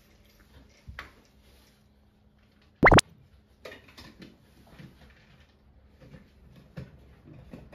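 A single short, loud pop with a quickly rising pitch about three seconds in, likely an edited-in cartoon sound effect, amid faint soft taps and rustles on the tabletop.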